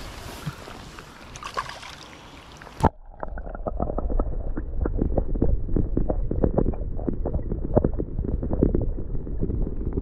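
Open-air wind noise on the microphone at the lake's edge, then a sharp knock about three seconds in as the camera is plunged into the water. From then on the sound is muffled and low: underwater rumble with rapid bubbling and clicking.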